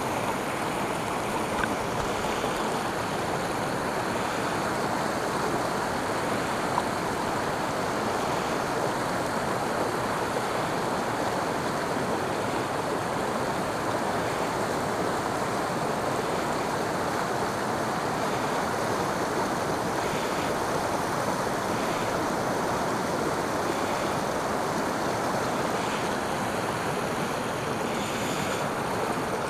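Shallow river water rushing and churning over rocks in a riffle, a steady even rush.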